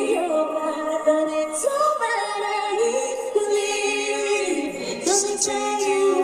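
A woman's solo voice singing a slow ballad line live, with the backing track removed, holding and sliding between long notes without clear words.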